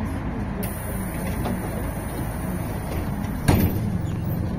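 Inside a GolAZ AKA-5225 city bus under way: steady engine and road rumble, with a faint high-pitched whine for about three seconds and a single sharp knock about three and a half seconds in.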